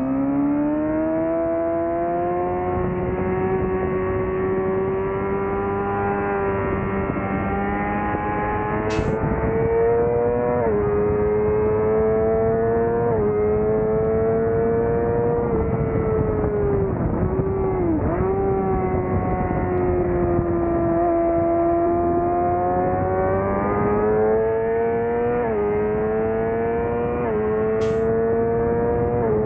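Suzuki GSX-R600 inline-four engine at full track pace. It revs up through the gears with quick upshifts, drops in pitch about halfway through as the rider rolls off with a few short blips, then pulls hard through the gears again, over steady wind rush.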